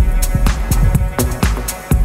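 Electronic background music with a steady drum-machine beat and heavy bass.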